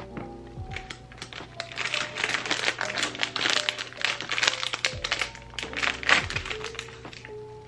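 Clear plastic bag crinkling as it is handled and opened, a dense, irregular crackle that builds about a second and a half in and fades near the end. Soft background music plays underneath.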